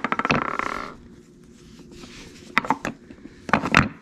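Porsche 996 front control arms being handled and knocked against each other and the floor. A quick rattling run of clicks comes at the start, then a few sharp knocks near the end.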